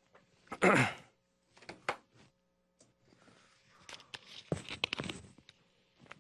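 A lapel microphone being handled against a shirt: scratchy rustling and small knocks, densest in the second half. Near the start there is a short breathy voice sound with falling pitch, like a sigh.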